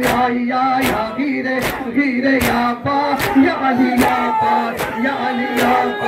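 Group of male mourners chanting a noha in unison, with rhythmic matam chest-beating: a steady strike a little more than once a second, about eight in all.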